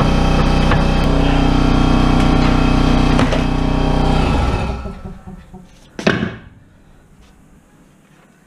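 A motor-driven machine runs steadily with an even hum, then shuts off about four and a half seconds in and dies away within half a second. About a second and a half later comes one short, loud, sharp sound.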